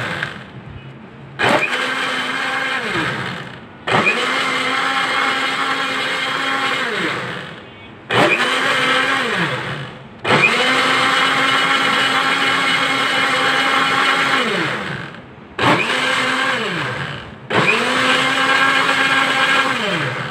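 Electric countertop blender churning a banana milkshake with ice cubes, run in about six bursts of one to four seconds. In each burst the motor's pitch climbs as it spins up, then sinks away as it winds down in the short gaps between.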